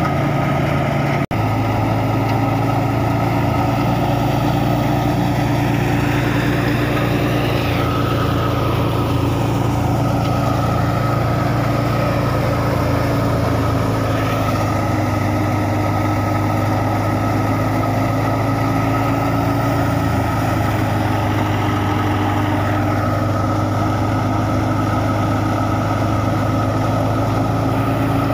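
Stationary wheat thresher running at steady speed, driven by a Massey Ferguson 260 tractor: a continuous drone of the tractor engine, the spinning threshing drum and the blower, with wheat straw being fed in. The sound breaks off for an instant about a second in.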